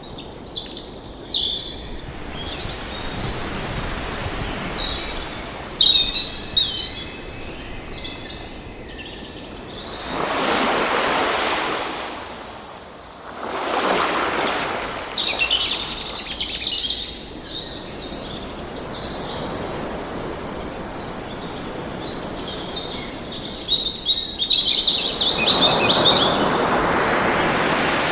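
Several birds chirping and singing in quick trills and short calls over ocean waves washing onto a shore; the surf swells up and fades a few times.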